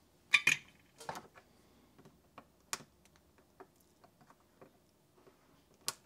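Scattered light clicks and sharp taps, a handful over a few seconds, from hands handling a copper stripboard and its component leads on a wooden bench.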